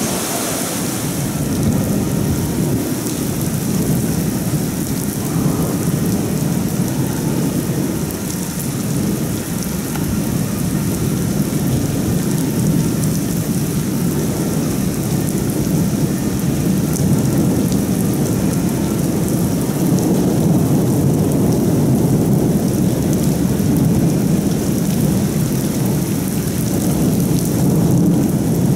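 Heavy rain pouring onto a paved street in a violent windstorm, with gusts buffeting the microphone. A loud, steady rush of noise with no pauses.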